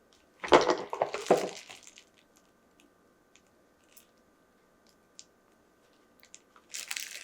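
Plastic packaging rustling and crinkling as items are handled, in two short bursts (the louder one about half a second in, another near the end), with a few small clicks in between.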